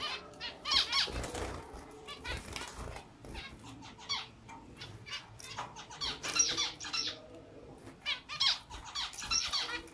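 A flock of caged zebra finches calling: many short, high, nasal chirps from several birds at once, coming in clusters.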